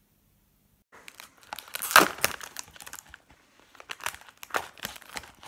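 Plastic cling film crinkling and tearing as it is pulled off a plastic food tray, in irregular crackles and clicks that start about a second in and are loudest about two seconds in.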